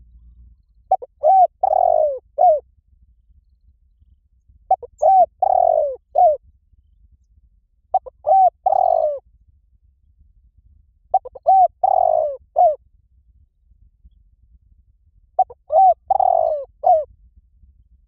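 Spotted dove cooing: five calls, each made of two quick coos, a longer drawn-out coo and a short final coo, repeated the same way about every three and a half seconds. It is a decoy call used to draw wild doves in.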